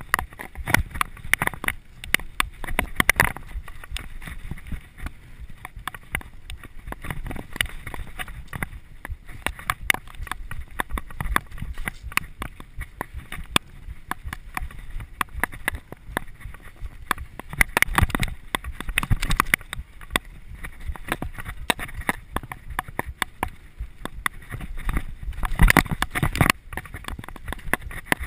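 Mountain bike riding fast down a dirt singletrack: tyres rumbling over the ground with the frame and drivetrain rattling and clicking over bumps, and sharper clatters over bigger bumps, the loudest near the end.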